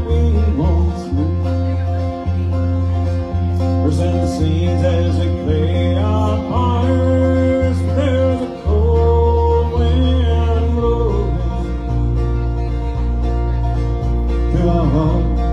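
A live acoustic bluegrass band plays an instrumental intro: plucked strings over a steady low bass, with a melody line sliding between notes.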